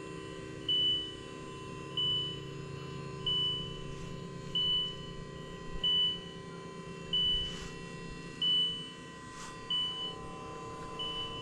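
Boom lift's electronic warning alarm: a short high beep repeating evenly about every 1.3 seconds, over a steady hum.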